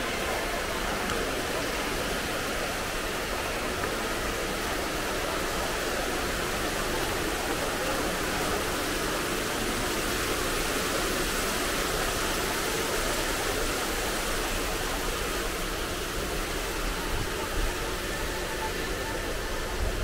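City street ambience at night: a steady, even hiss of urban noise with no single sound standing out.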